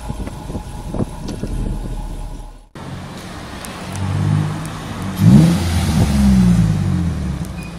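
A Jaguar XKR's supercharged V8 running at its quad exhaust tips with a low steady burble. After an abrupt cut, a Nissan 350Z's V6 is heard accelerating past, its pitch rising, loudest about two-thirds of the way through before easing off.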